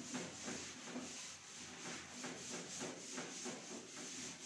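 Chalkboard duster wiping chalk off a blackboard in quick back-and-forth rubbing strokes, about three a second.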